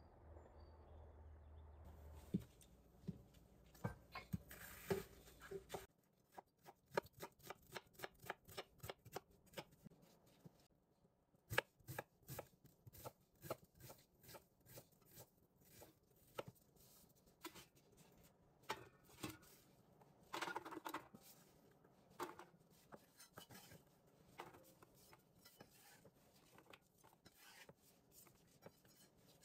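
A chef's knife chopping an onion on a wooden cutting board: sharp taps in an even run of about three a second, then slower, irregular chops.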